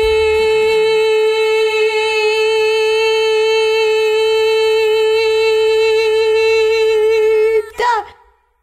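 A woman's singing voice holding one long, steady high note for about seven and a half seconds, then wavering and breaking off near the end as the breath runs out.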